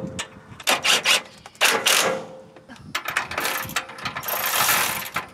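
A 13 mm ratcheting wrench clicking in several short bursts as the clamp bolts on a tie rod adjusting sleeve are tightened, ending in a fast continuous run of clicks near the end.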